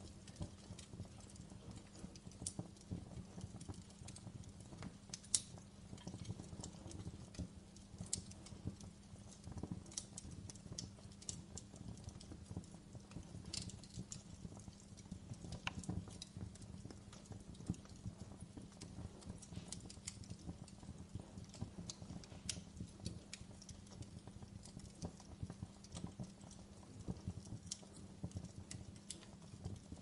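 Campfire crackling: irregular small pops and snaps of burning wood over a low, steady background, with one sharper pop about five seconds in.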